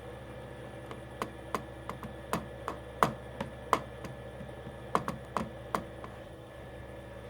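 A string of about fifteen sharp, irregular clicks and light taps over roughly five seconds, over a steady background hum.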